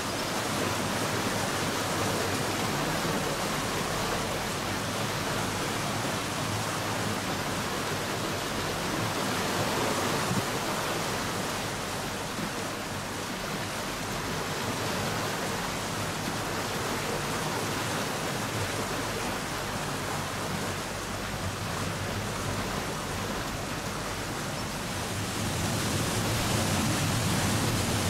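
Murchison Falls on the Nile: the steady roar of the waterfall and its churning white water, growing a little louder near the end.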